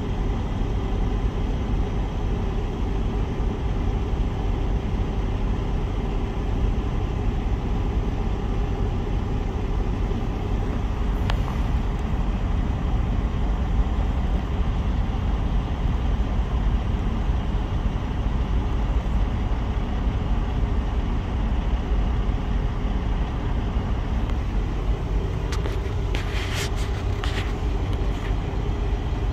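Steady low rumble of an idling semi-truck diesel engine heard from inside the cab. A few short, sharp clicks come near the end.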